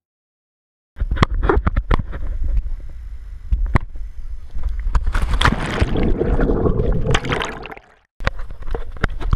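Water sloshing and splashing around a wide-angle action camera at the surface beside a boat, with sharp knocks from the camera being handled and a strong low rumble. It starts after about a second of silence, grows busiest in the middle, and cuts out briefly near the end.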